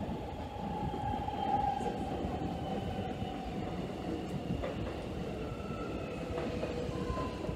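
X'Trapolis electric suburban train running along the platform, its steady rumble topped by an electric motor whine that slowly falls in pitch as the train slows to stop at the station.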